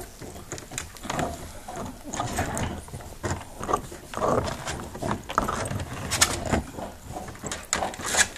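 Dog chewing and gnawing on a bone, a dense run of irregular clicks and scrapes.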